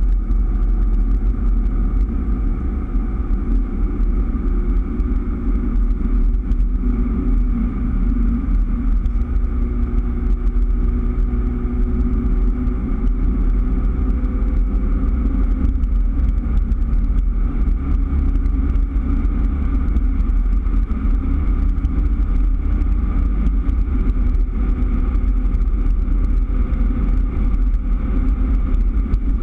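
2003 Daihatsu Terios driving at a steady cruise, heard from inside the cabin: a constant low road rumble under a steady engine drone whose pitch drifts slowly up and down.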